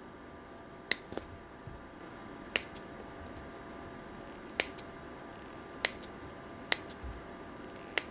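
Small scissors snipping through a soft foam squishy toy to cut off its tail, with a series of sharp snips about one every second or two over a faint steady hum.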